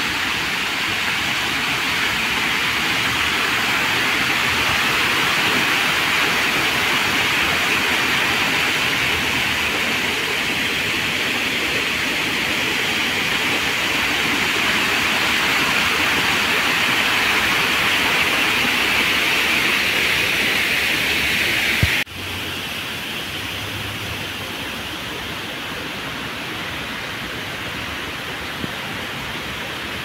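Steady splashing and rushing of a tiered cascade fountain, water jetting from its sculptures and spilling over broad stone steps. About two-thirds of the way through it cuts off abruptly, leaving a quieter steady hiss.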